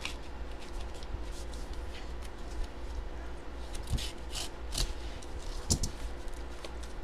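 Scissors cutting into a padded paper mailer, then the paper crackling and rustling as the envelope is handled and pulled open, with a couple of sharper crackles and light thuds over a steady low hum.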